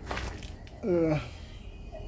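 A man's voice making one short sound, under half a second, about a second in, falling in pitch, like a murmured "hmm" or "ohh"; a few faint clicks around it.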